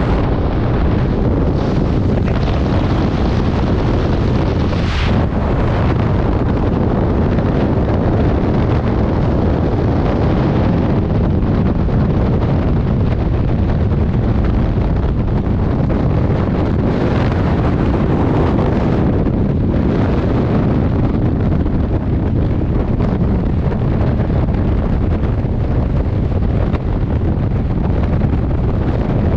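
Skydiving freefall wind rushing over a helmet-mounted camera's microphone, loud and steady, with brief gusts about five seconds in and again around seventeen to nineteen seconds in.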